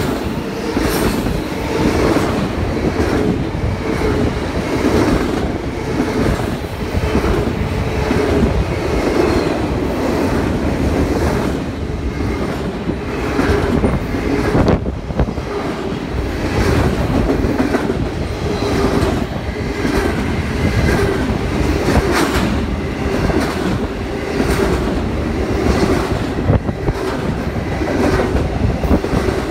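Double-stack intermodal container freight train passing close by at speed: a continuous rumble of the cars rolling, with regular clickety-clack of the wheels over rail joints about once a second and a steady ringing hum.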